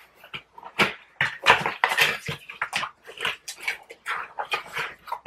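Box and packaging being opened by hand: an irregular run of crinkling, rustling and tearing strokes.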